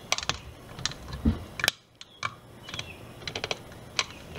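Irregular sharp clicks and crackles, with one dull thump a little over a second in, as the blade of a hand-pressed wood-strip cutter is forced down through a 10x2 walnut strip, a cut that needs quite a bit of pressure.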